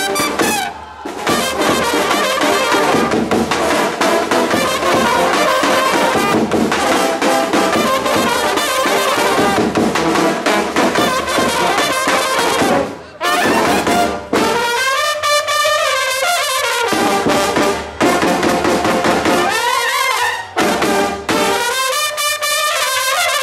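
Serbian brass band playing in the Guča style: trumpets and tenor horns over a bass drum. Twice the low accompaniment drops out, leaving the lead horns playing alone for a second or two.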